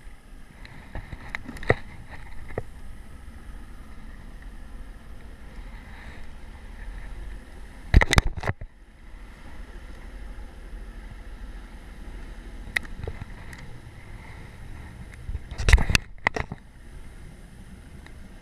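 Bass boat's outboard motor running at low speed under way, a steady low rumble with water and hull noise. Two sharp knocks stand out, one near the middle and one near the end.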